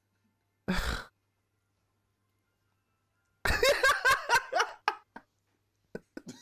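A man lets out a sharp exhale, then bursts into loud laughter about three and a half seconds in, in short rapid pulses lasting under two seconds.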